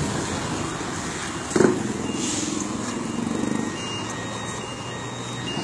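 City bus engine idling, a steady low running noise, with a single knock of the phone being handled about a second and a half in.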